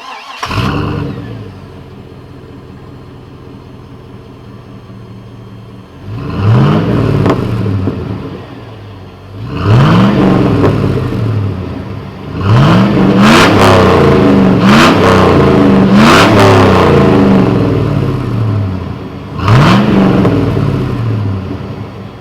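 Chevrolet 5.3L LM7 V8, exhausting through an aftermarket Cherry Bomb muffler, idling steadily for several seconds. It is then revved in a series of quick throttle blips, the note rising and falling each time, with a quick run of them about halfway through.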